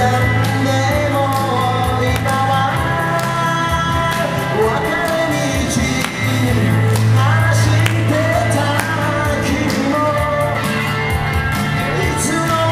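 Live amplified song: a singer's voice over a hollow-body electric guitar, heard through PA speakers, with sustained low bass notes underneath.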